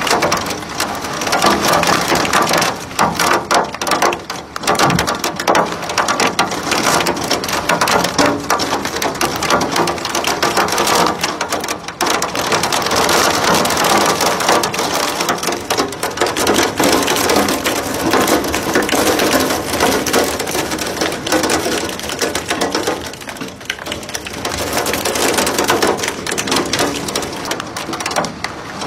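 Heavy wind-driven rain from a microburst hitting a window, a loud continuous rush of rain and wind with many quick small hits against the glass.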